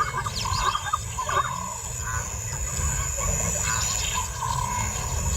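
Wild bush ambience: scattered short bird calls over a steady high-pitched insect drone, with a low rumble underneath.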